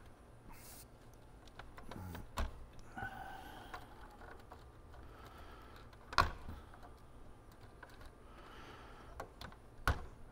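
Three sharp snips of plastic wire ties being cut, about a second in from the middle and near the end, amid faint rustling of wiring harnesses being handled inside a cassette deck's metal chassis.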